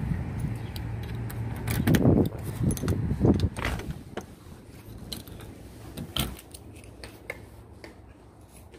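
Keys jangling and a front-door deadbolt and knob being worked, with a cluster of loud clicks and clacks about two to three and a half seconds in, then a few lighter knocks as the door swings open. A low outdoor rumble underneath drops away about four seconds in.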